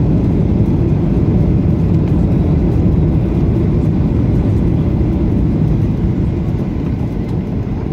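Loud, steady cabin rumble inside a jet airliner rolling along the runway just after landing, easing slightly near the end.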